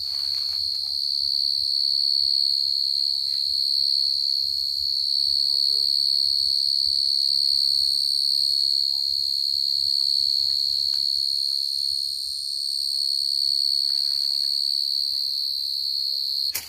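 A field cricket calling close by: one steady, unbroken high-pitched trill that cuts off suddenly near the end.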